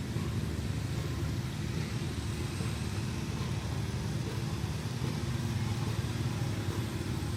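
A small tractor's engine running at a steady speed: a low, even hum that holds its pitch throughout.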